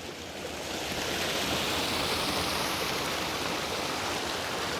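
Small creek waterfall cascading over rocks: a steady rush of falling water that grows louder about a second in and then holds.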